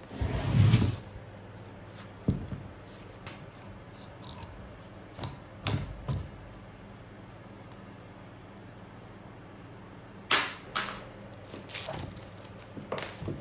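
A heavy thump as a rough log is shifted on a workbench. Then scattered sharp knocks and scrapes, several close together near the end, as a claw hammer hits and pries at the bark and roots on the log.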